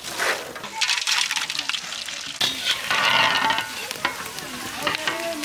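Chips frying in hot oil in a pan, a steady sizzle full of small crackles that grows louder about two and a half seconds in.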